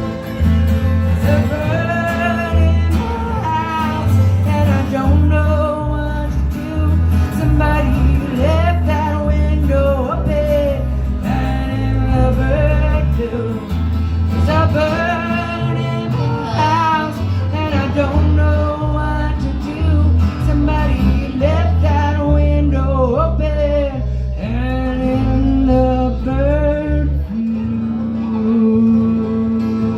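Live acoustic country-style band music: guitar and a moving bass line under a wavering lead melody. Near the end the bass stops and a long note is held.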